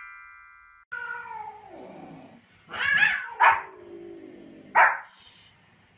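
A dog and cat facing off: a long falling moan-like call, then a small dog yapping sharply three times, with a lower drawn-out call between the yaps. A fading chime ends just under a second in.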